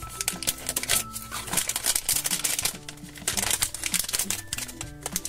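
Foil-plastic blind-bag packet crinkling and tearing as it is opened by hand, over background music with held notes.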